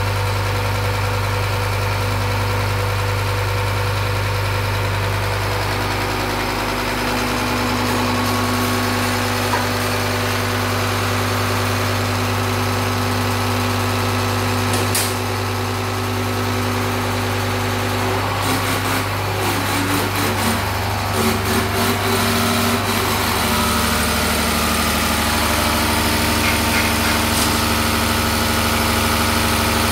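Diesel injection-pump test bench running: its drive spins an inline diesel injection pump, which sprays test fuel through the bench nozzles into the measuring glasses, giving a steady mechanical hum with a low drone. A single click comes about halfway through, and a few seconds later there is a short stretch of uneven clicking.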